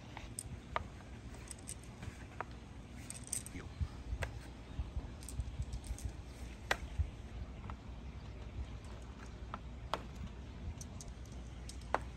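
Glass marbles being set down one by one on a perforated hardboard tray, giving sparse, irregular light clicks of glass on board and against neighbouring marbles, over a faint low rumble.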